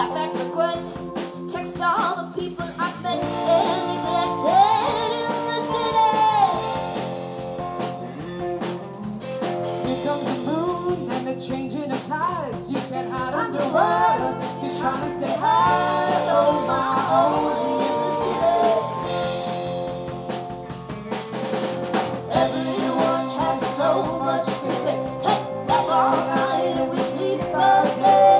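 A pop-folk band playing live: drum kit, electric guitars and keyboard together in a steady, continuous groove.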